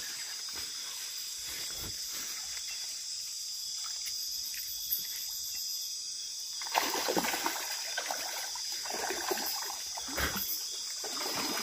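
Night insects, crickets, trilling steadily; from about seven seconds in, irregular splashing of water joins them.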